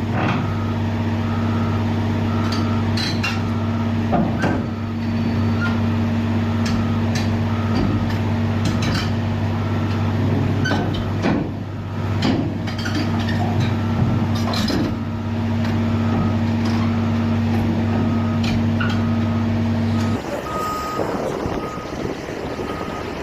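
Heavy diesel machinery running steadily, with a reversing alarm beeping about once a second and scattered metallic clanks; the engine drone drops away near the end while the beeping goes on.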